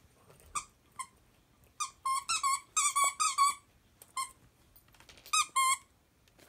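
Squeaky dog chew toy squeaking as a husky bites down on it. The short, even-pitched squeaks come singly at first, then in a quick run about two seconds in, with another short run near the end.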